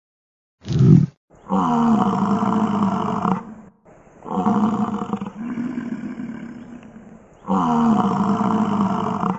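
Bison bellowing: a short grunt about a second in, then three long, deep bellows, the middle one fading out slowly.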